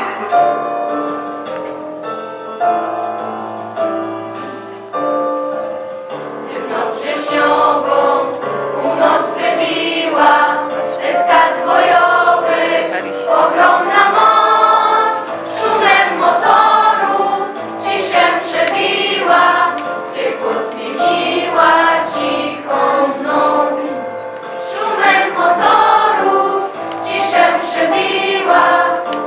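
A choir of young voices singing a song over musical accompaniment, after an instrumental introduction of about six seconds.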